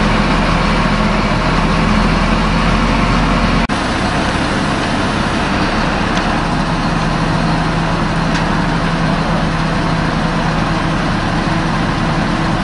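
Heavy diesel engine running steadily, with a brief drop and a change in tone about four seconds in.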